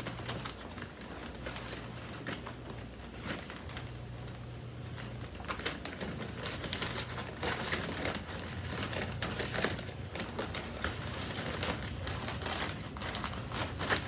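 Paper vacuum dust bag crinkling and rustling as it is pushed and fitted into an upright vacuum's cloth outer bag, with scattered clicks and handling noises that get busier about five seconds in.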